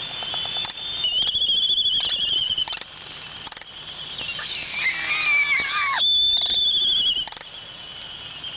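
Laysan albatrosses calling during a courtship dance: two long, high, wavering calls, one about a second in and one near the end. Between them comes a call that slides down in pitch.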